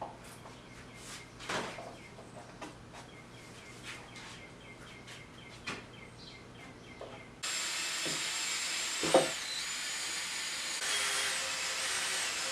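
Scattered light taps and clicks of hand work on wood. About seven seconds in, a small power tool starts up suddenly and runs steadily with a high, wavering whine.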